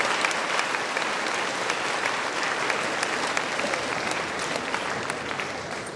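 Audience applause: many people clapping steadily, easing off a little toward the end.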